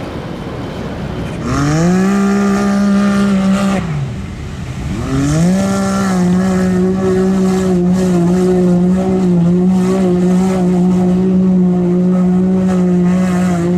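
Off-road vehicle's engine revved hard while churning through a mud pit. It runs up to high revs about a second and a half in, drops off near four seconds, then revs up again and holds at high, steady revs.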